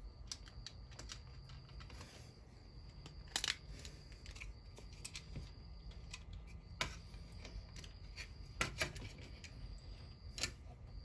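Light clicks and clacks of a Lionel flat car's body and its wheel trucks being handled and set down on a workbench, with a few sharper knocks about every two seconds.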